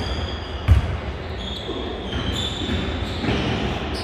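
Basketball bouncing on a gym floor, with one loud thump about three-quarters of a second in, over the noise of a large hall. Short high squeaks come and go.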